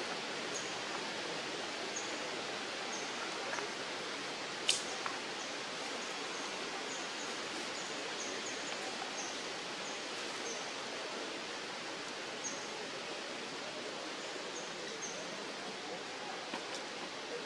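Steady outdoor background hiss, with short high chirps every second or so and one sharp click about five seconds in.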